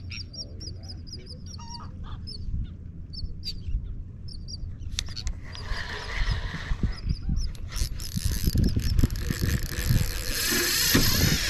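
Birds calling in repeated short, high chirps, then a louder rushing noise with low thumps takes over about halfway through.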